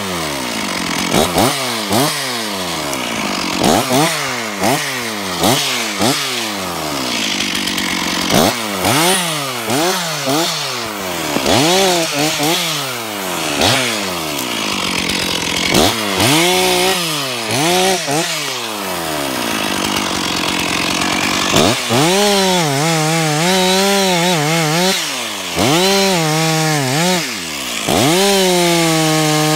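Stihl 046 two-stroke chainsaw working through small pine stems. At first it runs in short bursts of throttle, the revs falling away after each one about once a second. From about two-thirds of the way through it holds high revs in longer cuts, the pitch wavering and sagging under load.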